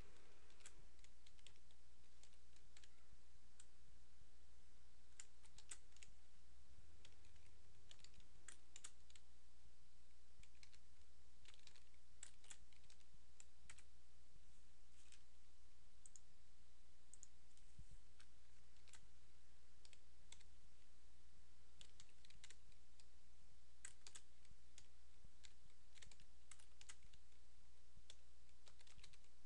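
Computer keyboard typing and mouse clicks in short scattered clusters, over a steady low hum.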